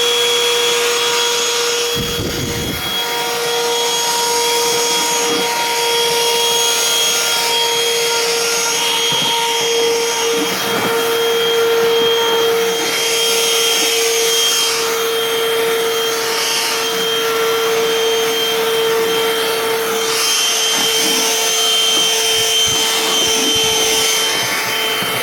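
Black & Decker Pivot cordless handheld vacuum running on its 20-volt lithium battery: a steady motor whine held at one pitch, with a hiss of suction as it picks up bits of styrofoam. A few brief knocks and rattles come about two seconds in and again near the end.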